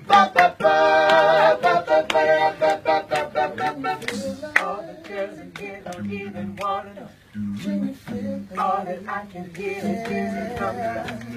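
A group of voices singing a cappella, with a steady beat of sharp percussive clicks under the singing.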